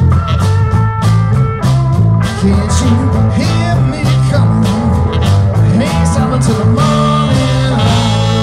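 Live blues band with electric guitars, bass, saxophone and drums playing. The drums stop near the end and the band holds a final chord that rings on.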